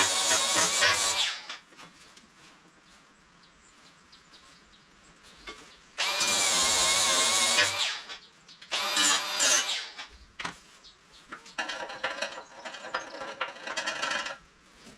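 Small petrol engine on a power tool, revved up in short bursts with quiet pauses between: one trailing off about a second in, then three more later on.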